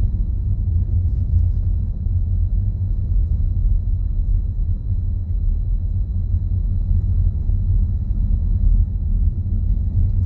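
Steady low rumble of a car in motion: road and engine noise with no change in pitch or level.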